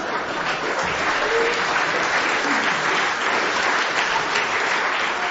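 Live audience applauding steadily, a dense clatter of many hands clapping.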